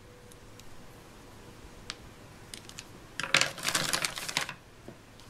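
Plastic Play-Doh toy pieces handled on a tabletop: a few light clicks, then about a second of dense clattering starting about three seconds in.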